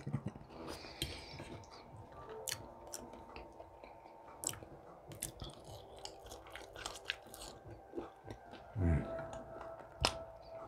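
Close-up chewing and mouth sounds of a person eating, with many small wet clicks. A brief low voiced sound comes about nine seconds in, and a sharp click a second later.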